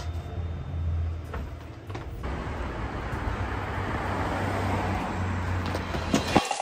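Street traffic: a low hum gives way about two seconds in to the rushing noise of a passing car, which swells and holds. Two sharp knocks come just before the sound cuts off suddenly near the end.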